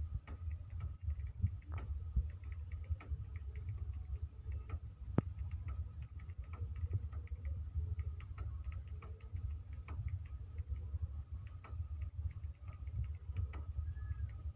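Keyboard keys being typed on quickly: a rapid, irregular stream of light clicks, several a second, over a steady low hum.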